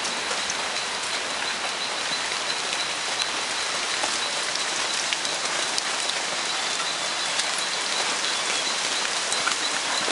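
Steady rain falling on dense rainforest foliage: an even hiss with scattered drip clicks. A thin, steady high tone runs through it.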